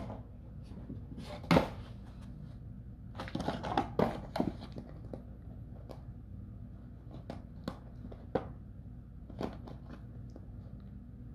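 Bernese mountain dog puppy chewing a clear plastic bottle: irregular crinkles and crunches of the plastic, a bunch of them around three to four seconds in, then single crackles spaced out after that.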